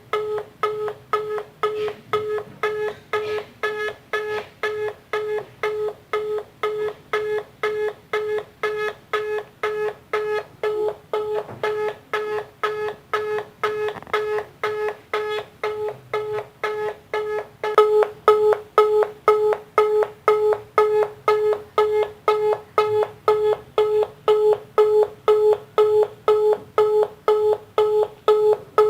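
Telephone busy signal: a single mid-pitched tone beeping on and off evenly, about twice a second, the sign that the line called is engaged. It gets a little louder about two-thirds of the way in.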